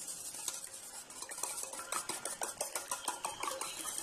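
Raw eggs being beaten with a utensil in a stainless steel bowl: quick, repeated clinks of the utensil against the metal bowl, mixed with the slosh of the eggs.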